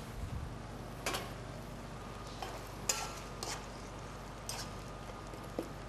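A few separate light clinks and knocks of a metal spoon against a stainless-steel cooking pot as it is stirred, over a faint steady hum.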